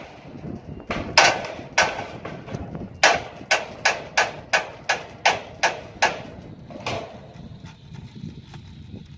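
Hammer blows driving wedges into the rack's connections: about a dozen sharp strikes, about three a second in the middle, stopping about seven seconds in.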